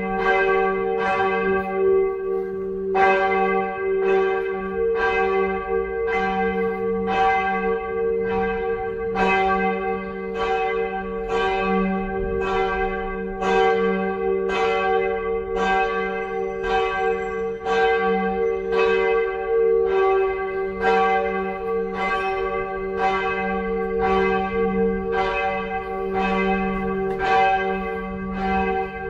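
Church bells ringing in a steady, regular stream of strikes, about three every two seconds, each stroke ringing on into the next.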